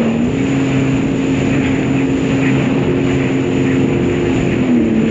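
Sea-Doo GTX personal watercraft engine running under way over choppy water. Its pitch steps up shortly after the start, holds, and drops back near the end, over a steady rush of wind and water.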